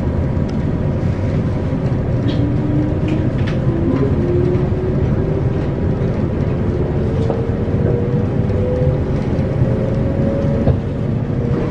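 JR West 117 series electric train's traction motors whining as the train pulls away and accelerates, the whine rising in pitch in steps, over the rumble of wheels on rail heard from inside the carriage. These are the rheostat-controlled DC motors of this older EMU, known as loud.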